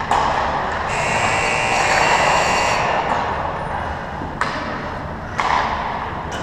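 Ice-hockey skate blades scraping across the ice in a hissing scrape lasting about two seconds, with a sharp knock at the start and three more near the end.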